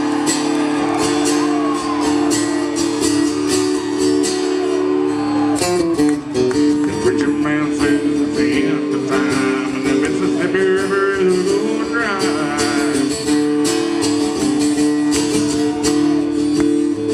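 Acoustic guitar strummed in a steady rhythm, played live through a stage PA.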